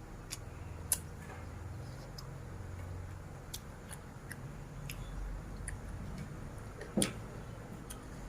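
Eating sounds from spicy Thai seafood papaya salad: scattered sharp clicks and crunches of chewing, with two louder clicks about a second in and near seven seconds.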